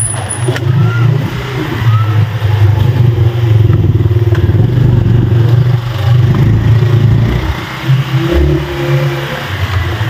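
Motorcycle engine running steadily while riding along.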